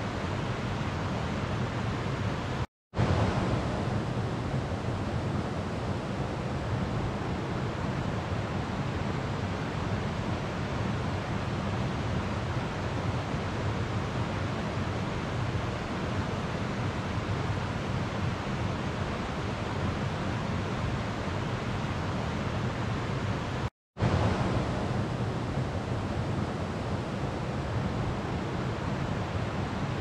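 River water flowing in a steady rush, cutting out for an instant twice, about three seconds in and again near the end, each time coming back briefly louder.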